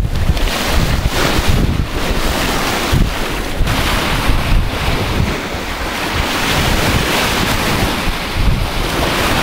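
Wind buffeting the microphone in uneven gusts, over surf breaking on the shore.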